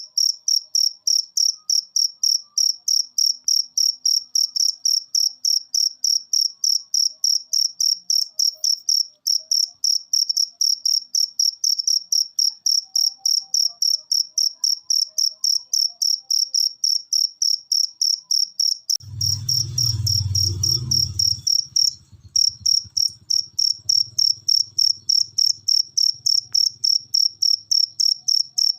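Cricket chirping in a fast, even train of high-pitched pulses, several a second. About two-thirds of the way through, a low rumble sounds under it for a couple of seconds.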